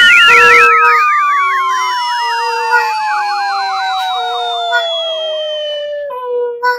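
Cartoon sound effects: a long whistle-like tone sliding slowly down, with a warbling tone falling alongside it and a short hiss at the start, over a soft two-note pattern repeating about once a second. The falling tones stop about six seconds in.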